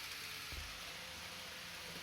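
N-gauge model of an E6 series Komachi Shinkansen running on its track: a faint steady hiss of wheels on rail with a low motor hum.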